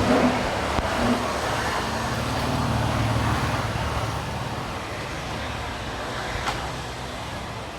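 Road traffic: a vehicle engine runs low under a wash of street noise, fading slowly as it passes.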